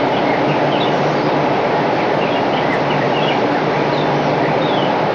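Birds chirping in many short high notes over a loud steady rushing noise.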